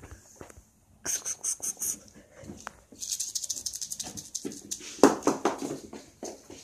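Kittens scampering and skittering on a wooden floor, their claws clicking in quick runs, with a louder scuffle about five seconds in.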